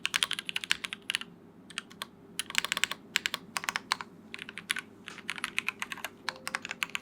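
Typing on a custom mechanical keyboard: a Nika SE PC with vintage black linear switches on a polycarbonate plate and GMK Sandstorm keycaps. Quick flurries of key clacks with short pauses between them.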